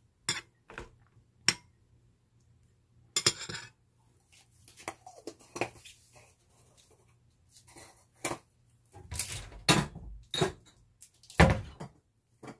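Metal spoon clinking on a white ceramic plate while radish microgreens are mixed with vinegar, then being set down. Scattered clinks and clatters of tableware follow, with a couple of heavier knocks near the end.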